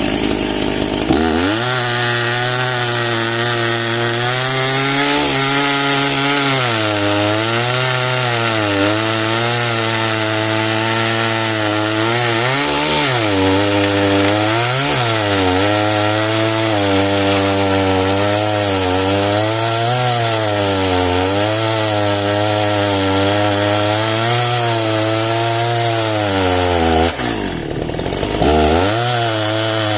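Husqvarna two-stroke chainsaw with a 35-inch bar running under load in a cut through wood. Its pitch wavers up and down throughout, and it drops briefly near the end before picking back up.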